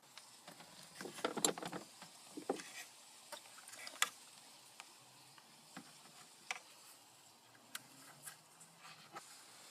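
Scattered light clicks and rustles of hands handling a zip tie and plastic speaker parts.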